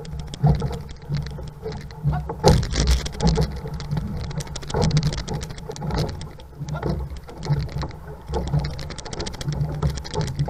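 Water splashing and rushing along the hull of a six-man outrigger canoe under way, with paddle blades striking the water and a constant low rumble.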